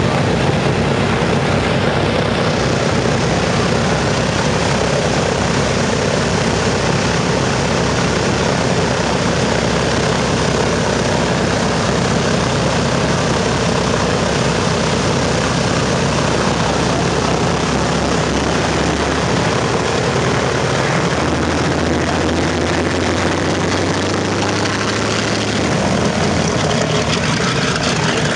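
Boeing B-29 Superfortress's four Wright R-3350 radial engines running at taxi power as the bomber rolls past, with propeller drone. The deep engine tones shift in pitch about two-thirds of the way through as the engine speeds change.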